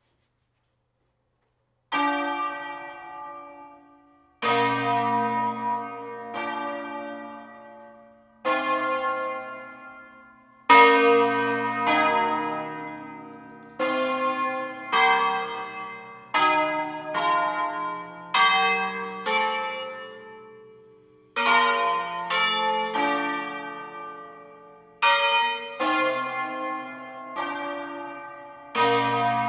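An eight-bell Lombard concerto of church bells (Fratelli Barigozzi, Milan, 1894, tenor in B-flat) playing a slow melody in single strokes. Each stroke rings out and fades while the next bell sounds at uneven spacing. The ringing starts suddenly about two seconds in, after silence.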